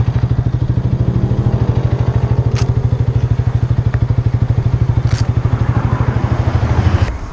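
Motorcycle engine idling with a fast, even pulsing beat, then cutting out about seven seconds in. Two short clicks sound in between.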